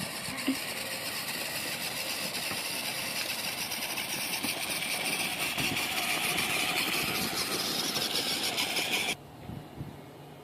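Homemade remote-control cart running steadily, its drive motor and wheels rolling over the ground, then cutting off abruptly about nine seconds in.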